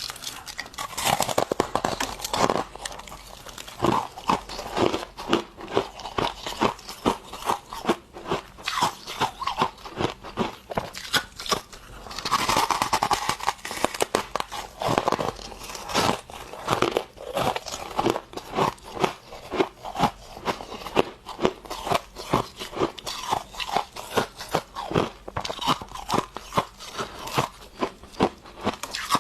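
A person biting and chewing freezer frost: a steady run of crisp crunches, several each second, thickening into a dense spell of crunching about twelve seconds in.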